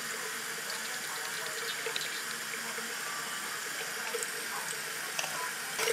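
Bathroom sink tap running steadily, the stream splashing into a small plastic toy toilet held under the spout.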